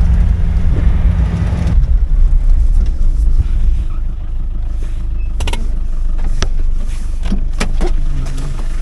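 Farm ute driving across a rough paddock, its engine and drivetrain giving a steady low rumble. The rumble is heavier for the first couple of seconds, then eases. A few sharp knocks and rattles come from the vehicle bumping over the ground later on.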